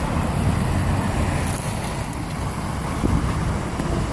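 A crowd of feral pigeons jostling and flapping their wings at close range, over a steady low rumble of street traffic and wind on the microphone.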